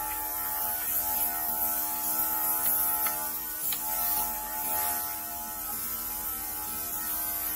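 Cordless handheld nano mist sprayer (UV blue-light disinfectant atomizer) running: the steady electric buzz of its small motor as it sprays alcohol mist.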